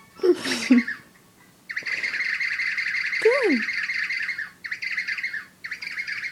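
Pet bird giving long stretches of rapid, rasping squawks, in three bouts with short breaks between them.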